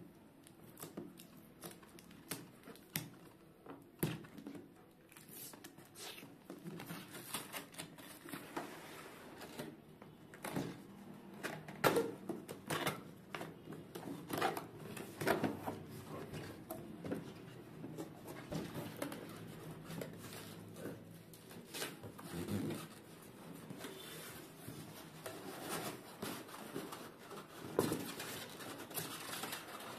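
A cardboard box being opened by hand: packing tape peeled off, flaps lifted and the inner cardboard box slid out. The handling makes irregular scraping, rustling and light knocks.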